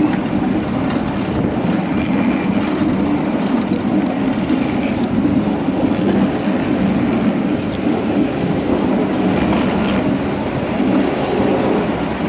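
Water-balanced funicular car of the Lynton & Lynmouth Cliff Railway rolling down its steep track, a steady rumble of wheels on rails.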